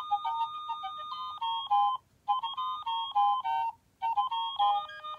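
Baby Einstein star toy playing a simple electronic melody in clean, beep-like tones, phrase by phrase, with two short breaks between phrases.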